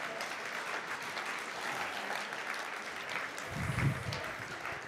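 Audience applauding steadily, with a short low voice-like sound about three and a half seconds in.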